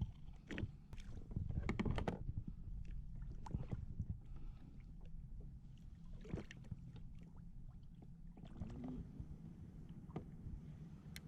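Irregular knocks and rattles on a kayak, over a steady low rumble.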